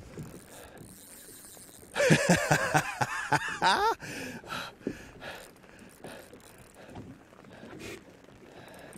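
Spinning reel's drag buzzing as a hooked walleye pulls line, for about two seconds, its pitch wavering and rising just before it stops.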